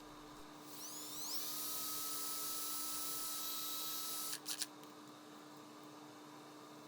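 Electric drill spinning up with a rising whine, then running steadily for about three seconds with a light hiss, as it spins a dowel being sanded down to size. It cuts off with a couple of clicks.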